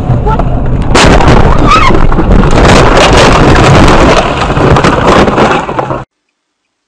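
Dashcam recording of a car crash heard from inside the car. Engine and road noise give way about a second in to a loud collision, then several seconds of crunching, clattering and knocks as the car is wrecked and its windshield cracks. The sound cuts off abruptly near the end.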